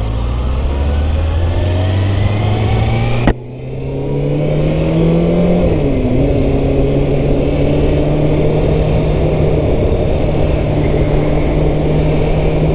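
Kawasaki Ninja ZX-6R 636's inline-four engine pulling away under throttle, its pitch rising for about three seconds. A sharp click and a sudden dip in sound follow, as at a gear change. It then builds again and settles into a steady note at cruising speed.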